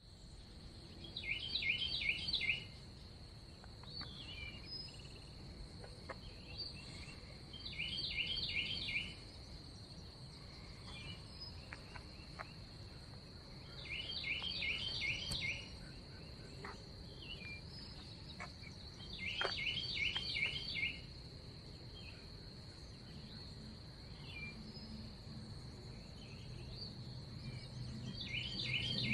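Outdoor ambience: a steady, high-pitched insect drone, with a songbird repeating a short, rapid phrase of notes about every six seconds.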